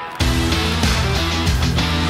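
Rock music with guitar and a steady drum beat. It jumps sharply louder just after the start as the full band comes in.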